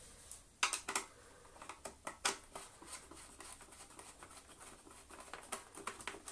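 Hand screwdriver driving a screw into the plastic housing of a Dyson DC07 vacuum cleaner: a few sharp clicks in the first second, then faint, irregular ticking and scraping as the screw is turned.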